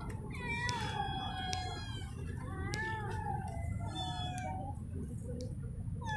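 Cats meowing: a string of about five drawn-out meows in the first four and a half seconds, then a pause before another starts at the end.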